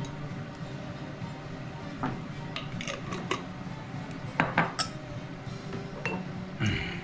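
A metal spoon clinking against a glass seasoning jar and a glass mixing bowl while seasoning is scooped onto chicken, with a jar set down on the stone countertop. A handful of separate clinks and taps, the loudest a pair about four and a half seconds in.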